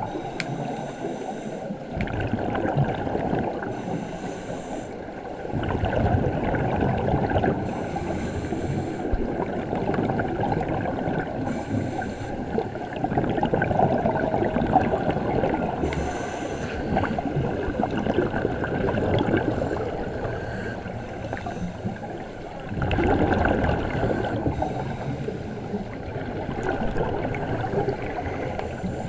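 Underwater sound of scuba divers breathing through their regulators: exhaled air bubbles gurgling and rushing, in louder surges about five seconds in and again near the end.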